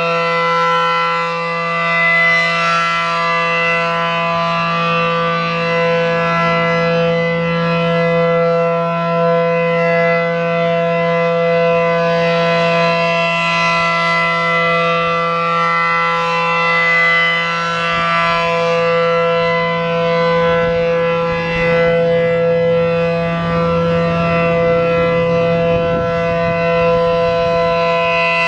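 Reverse-wired A.C.A. P-10 outdoor warning siren sounding a steady, unwavering tone at full speed, the alert signal.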